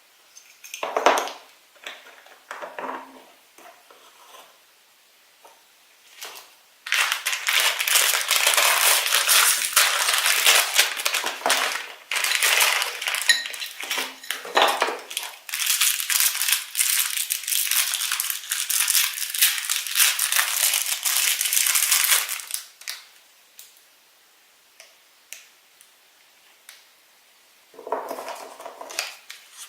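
Toy packaging being crinkled and torn open by hand: a long stretch of dense plastic crinkling from about seven seconds in to about twenty-two seconds, with scattered small clicks and taps of plastic pieces before and after.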